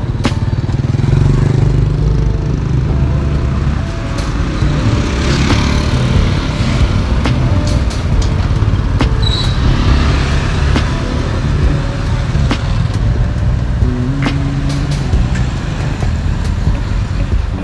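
Road vehicle noise: a steady low rumble with scattered short clicks, and a brief high chirp about nine seconds in.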